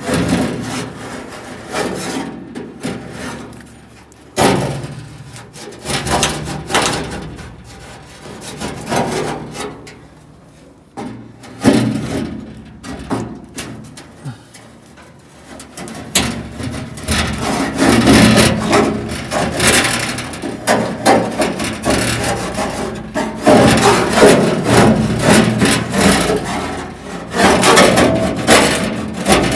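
A flat steel hand scraper scraping old gooey tar sealer off bare sheet-metal cab panels in repeated rough strokes. The strokes come sparser in the middle, then faster and louder over the second half.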